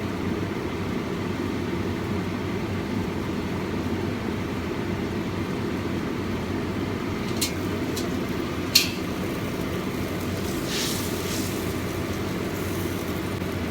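Steady low rumbling kitchen noise, like a running fan or burner, with three sharp clicks about seven and a half to nine seconds in, the last the loudest.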